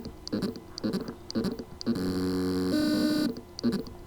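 Hard drive spindle motor with loose motor contacts trying to spin up: short whining pulses repeat about twice a second, then about halfway through a steady tone steps up once in pitch before another pulse. The motor spins but cannot reach its full speed because its contacts are loose.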